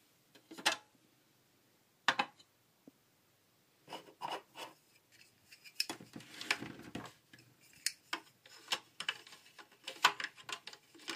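Hard plastic parts of a Fisher-Price shape-sorter cookie jar clicking and knocking as its lid is lifted off and a plastic shape block is pushed against and into a hole in its side. Two sharp clicks come first, then a busier run of knocks, rubbing and clicks.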